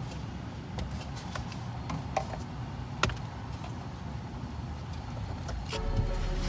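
Car engine idling, heard from inside the cabin as a low steady rumble, with a few small clicks and taps. Music fades in near the end.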